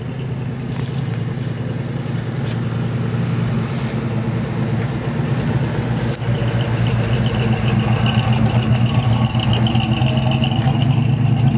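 1980 Ford F-150 pickup's 400M V8 running through 2½-inch dual exhausts with Thrush welded mufflers, a deep, steady engine note that grows louder as the truck drives up and passes close by.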